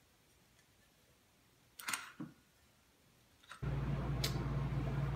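Faint handling knocks as the metal window regulator is moved, then a steady low hum that comes on suddenly about three and a half seconds in.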